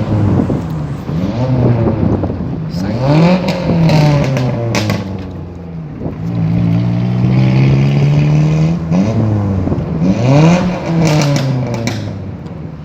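Modified Ford Ikon's loud exhaust as the engine revs up and drops back several times, held steady for a few seconds midway. There are sharp pops and crackles around where the revs fall.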